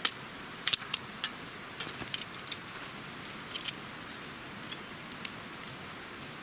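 Small metal objects clinking and tapping: a run of sharp, irregular clicks, the loudest in the first second or so and more scattered after, over a steady hiss.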